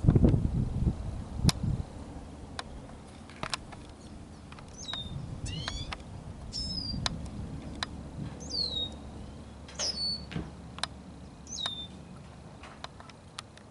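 Small birds chirping, with several short calls that sweep quickly downward in pitch through the middle of the stretch, among scattered sharp clicks. A low rumble in the first second and a half is the loudest part.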